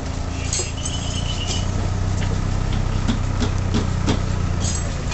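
An idling engine hums steadily and low, with a few short high chirps and faint knocks over it.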